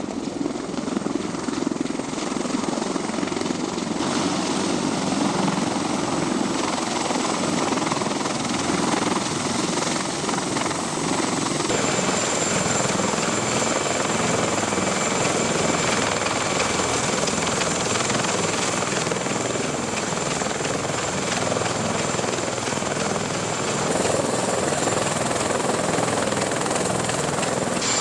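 Heavy military transport helicopter running close by: steady rotor and engine noise with a high, thin turbine whine. The sound shifts abruptly a few times.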